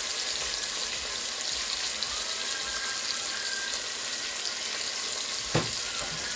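Red mullet frying in hot olive oil in a pot: a steady sizzle, with a single sharp knock near the end.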